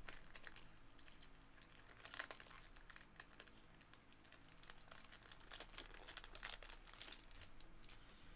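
Foil baseball-card pack wrapper being torn open and crinkled by hand: a run of faint crackles and rustles.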